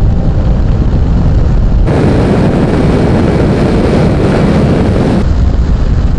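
Loud, steady wind noise buffeting the microphone of a camera on a Honda VFR1200F motorcycle at around 180 km/h, with the bike's V4 engine running underneath.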